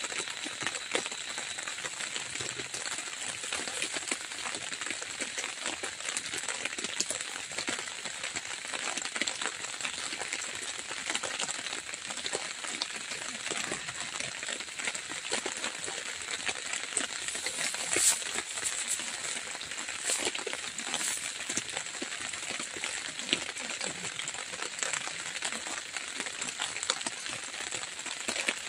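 Drizzle pattering steadily on the tent: a dense crackle of small drops over a soft hiss. A sharp clink about two-thirds of the way in and another shortly after.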